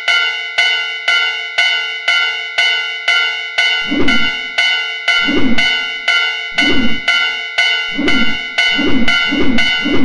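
Japanese railroad crossing alarm bell ringing its steady 'kan-kan' about twice a second, the warning that a train is coming. From about four seconds in, dull thumps are mixed in every second or so.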